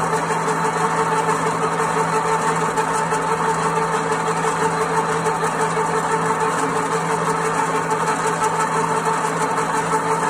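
A 38 mm pillar drilling machine running steadily, its large twist drill boring into a metal workpiece. The sound is an even mechanical hum with a few held tones, unchanging throughout.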